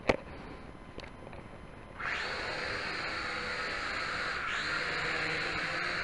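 A sharp click near the start, then about two seconds in a small toy quadcopter's motors start up suddenly into a steady high-pitched buzz that keeps running.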